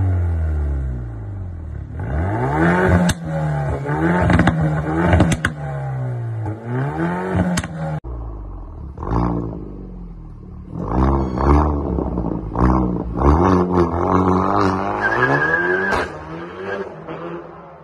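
Hyundai i30 N's turbocharged 2.0-litre four-cylinder revved repeatedly through its exhaust, the note climbing and falling in quick blips, with sharp pops and cracks as the revs drop. The clip cuts about halfway through to another i30 N revving the same way.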